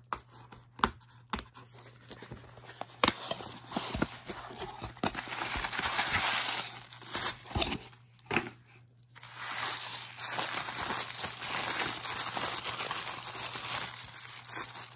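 Tissue paper crinkling and rustling as it is unwrapped by hand, in two long stretches, after a few sharp clicks in the first three seconds.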